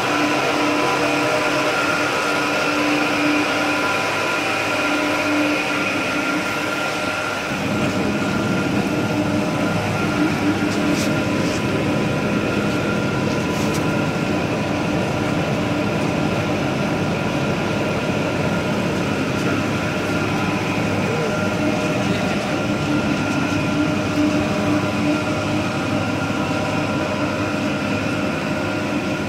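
Pyrolysis plastic-to-fuel plant running: a steady mechanical drone carrying several steady tones, growing fuller and rumblier about seven seconds in.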